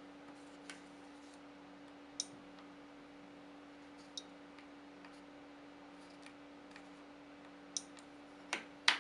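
Clicks from the buttons and plastic case of a four-button Aprimatic gate remote being handled and pressed: a handful of separate sharp clicks, the loudest two close together near the end, over a faint steady hum.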